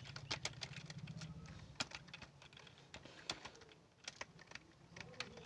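Keystrokes on a computer keyboard: fast, irregular clicking of someone typing, several keys a second, over a low steady hum.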